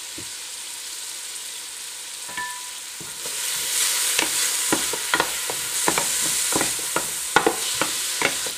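Diced yellow onion sizzling in hot vegetable oil in a stainless steel pot. From about three seconds in the sizzle grows louder as a wooden spoon stirs the onion, with repeated sharp clicks of the spoon against the pot.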